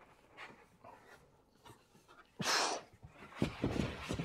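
A man breathing hard from lifting and moving a heavy load, with one loud exhale about two and a half seconds in. It is followed by a run of knocks and rustles from handling a large cardboard box.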